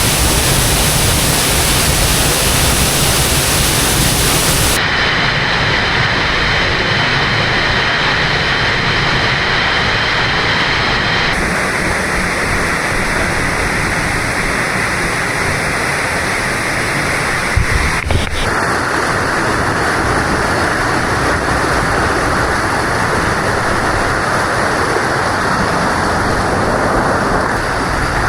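Loud, steady noise of a waterfall's falling water. Its tone shifts twice in the first half, and there is one brief knock a little past the middle.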